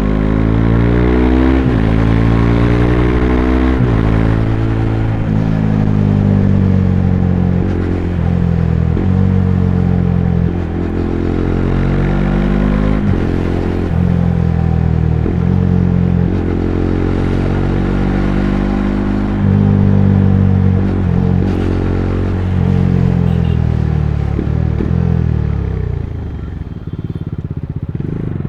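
Bajaj Dominar 400's single-cylinder engine under way, revving up and changing gear again and again, its pitch climbing and then dropping at each shift. Near the end the revs fall away as the bike slows.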